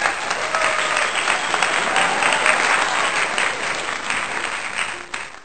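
Audience applauding, a dense steady clapping that fades near the end.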